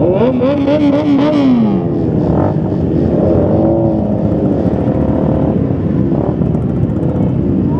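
Motorcycle engines in a group ride, revving up and easing off, with pitch rising then falling a few times, over steady road and engine noise.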